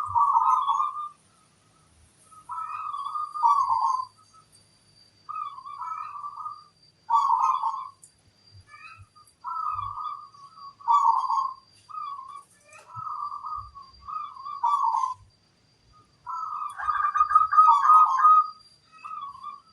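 Zebra dove (perkutut) cooing, repeating its phrase about every two to three seconds, with two phrases running together near the end.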